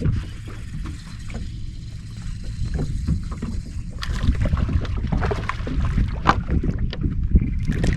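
Wind and water noise around a small fishing boat on the water: an uneven low rumble with scattered splashes and knocks, louder from about four seconds in.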